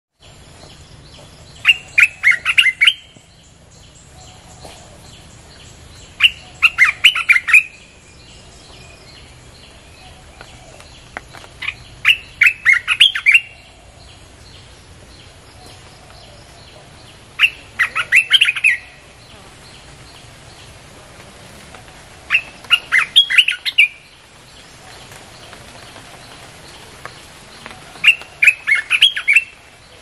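Bulbul song played as a lure call: a short phrase of several quick, clear notes, repeated six times about every five seconds.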